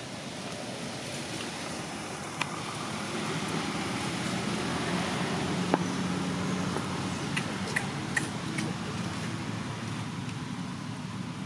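Outdoor ambience with a motor vehicle's low engine hum swelling and fading through the middle, and a few short sharp clicks, several close together a little after the middle.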